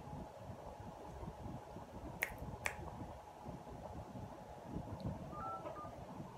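Phone being dialled: two sharp clicks about half a second apart, then a short keypad beep near the end, over a faint steady hum.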